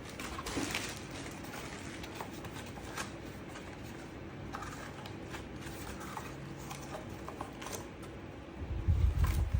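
Scattered light clicks and rustling of objects being handled over a faint steady hum, with a loud low rumble about a second before the end.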